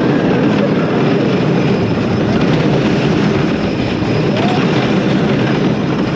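Cú Chulainn wooden roller coaster train running at speed over its wooden track: a loud, steady rumble of the wheels mixed with wind rushing over the microphone.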